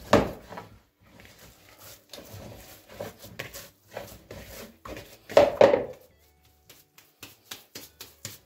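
Hands kneading and pressing a soft yeast dough for cornmeal flatbread against the sides of a plastic bowl: irregular squelches and dull thumps, the loudest about five and a half seconds in, thinning to a few faint taps near the end.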